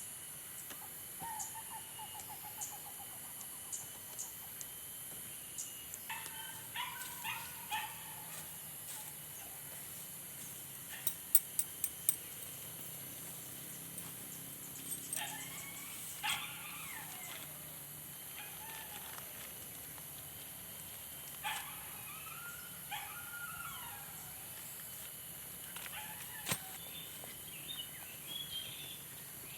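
Scattered outdoor bird calls, some of them longer sliding calls, with a quick run of sharp clicks about eleven seconds in, over a steady high hiss.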